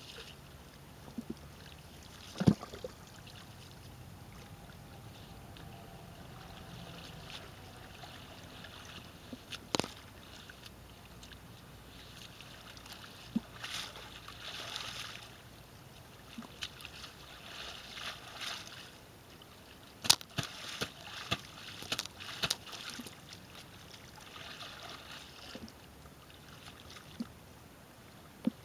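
Muddy puddle water sloshing and splashing as a person in a padded snowsuit rolls and crawls through it, coming in spells, with several sharp clicks scattered through.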